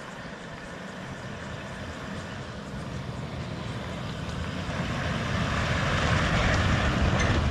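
Toyota LandCruiser 70 Series dual-cab ute driving up a dirt track toward the listener, its engine and running noise growing steadily louder as it approaches and is loudest as it draws alongside near the end.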